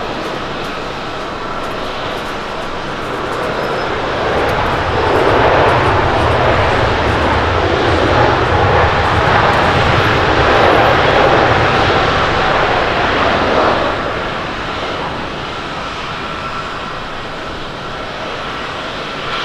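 The jet engines of a Boeing 777-300 airliner roaring during its landing roll on the runway. The roar swells loud about four seconds in and holds for about ten seconds, then eases off to a lower steady rumble.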